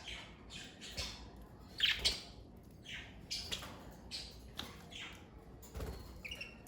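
Pet budgerigars (Australian parakeets) chattering with short squawks and chirps, a quick string of calls about every half second, many sweeping down in pitch.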